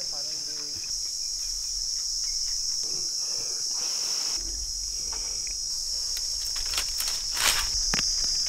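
Insects chirring steadily and high-pitched in the background, with rustling and a few sharp knocks and thuds in the last second and a half as a long bamboo pole shakes a mango tree and mangoes drop to the ground.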